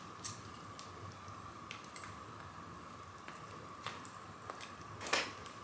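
Wood fire in a fireplace crackling, with scattered sharp pops and snaps at irregular intervals; the loudest comes about five seconds in.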